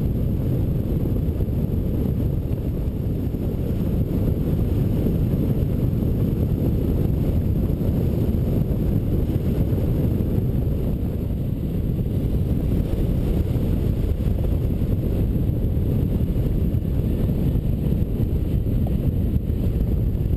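Wind rushing over a camera microphone mounted on a hang glider in flight: a steady, low rush with no breaks.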